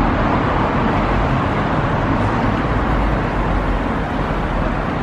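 Street traffic: cars driving past close by, a steady rush of engine and tyre noise with a low rumble.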